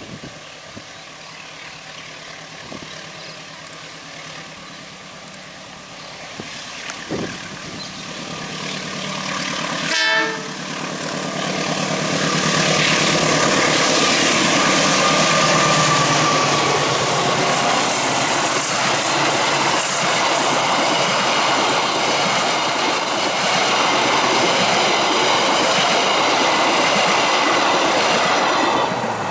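A train approaching and passing close by. Its horn sounds as it nears, then the wheels rumble and clack steadily over the rails as the carriages roll past.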